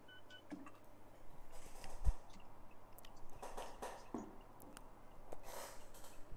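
Faint computer mouse clicks and rustling handling noise at a desk microphone. A quick double beep comes just after the start, and a low thump about two seconds in.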